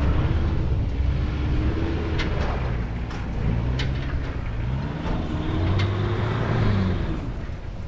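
Toyota Hilux Surf's engine revving up and down hard as the 4x4 is driven through an off-road course, with a few sharp knocks along the way.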